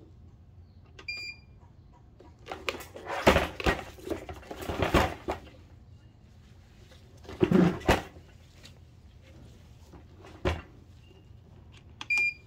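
Short electronic beeps from a West Marine power station's control panel as its buttons are pressed, one about a second in and one near the end. Between them come louder bursts of knocking and rustling as the plastic unit is handled and turned around.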